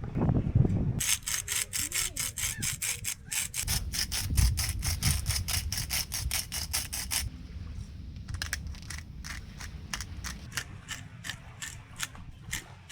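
A rapid, even run of crisp grinding or scraping strokes, about five a second, that stops about seven seconds in. Sparser strokes, about three a second, follow, over a steady low rumble.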